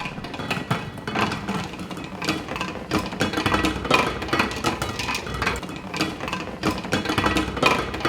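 Metal beer kegs clanging and knocking repeatedly against each other and the ground as they are unloaded, with no rubber matting to soften the impacts.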